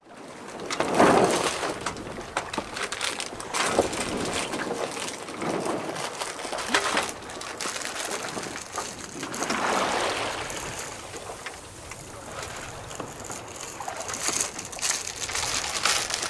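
Water rushing and sloshing past the hull of a 30 ft sloop under sail, with wind noise over it. The wash swells and eases irregularly every few seconds as the boat moves through the waves.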